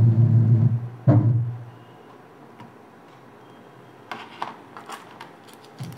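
Bass-heavy music from the amplifier's subwoofer output, cut off about a second in with a sharp click and dying away quickly. Then a few light clicks and taps of handling near the end.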